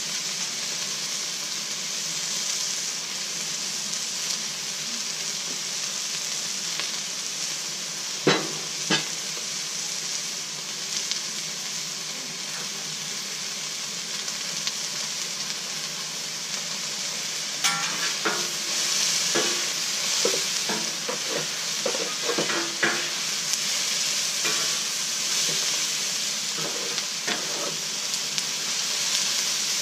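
Vegetables sizzling on a Blackstone flat-top griddle, a steady frying hiss. Metal spatulas scrape and tap on the griddle top, with two sharp clacks about eight seconds in and frequent scraping and tapping through the second half as the vegetables are stirred.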